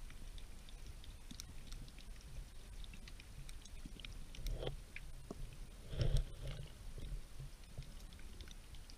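Underwater stream sound picked up by a submerged camera: a steady low rumble of flowing water with scattered faint clicks and ticks. There are two louder knocks, the first about halfway through and a stronger one a second or so later.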